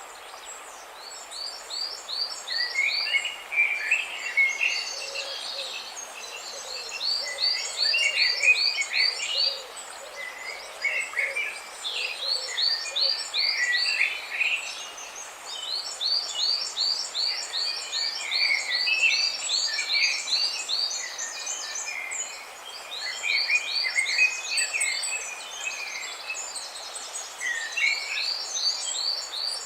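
Several songbirds chirping: repeated runs of quick high notes, about five a second and each run lasting a second or two, mixed with lower chattering calls, over a steady background hiss.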